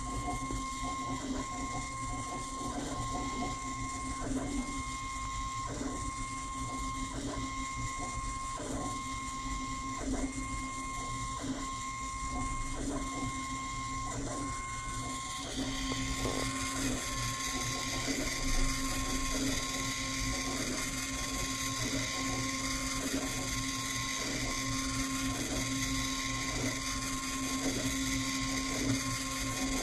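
Homemade 8 mm film telecine scanner running, making a chirpy mechanical sound in an even rhythm a little more than once a second as it advances and captures each frame. Behind it a 3D printer makes odd whirring sounds, and a hiss gets louder about halfway through.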